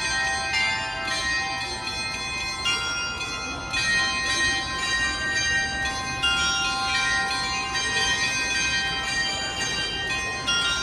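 Karakuri clock's chime of Dutch-made tuned bells playing a melody, many notes struck in quick succession and ringing over one another.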